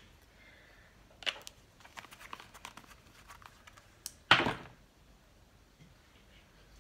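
Small clicks and rustles of a squeeze tube of green colour-correcting liquid being handled, with one louder knock about four seconds in.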